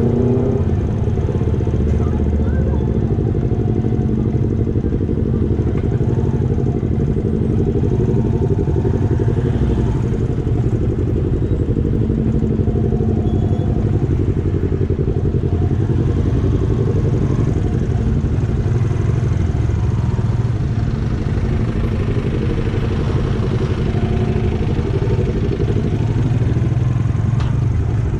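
Motorcycle running on the road, a steady, loud, low rumble throughout, with a couple of short clicks near the end.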